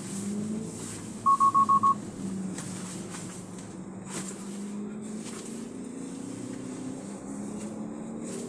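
Five quick, identical electronic beeps about a second in, over the steady engine and road noise of a car being driven.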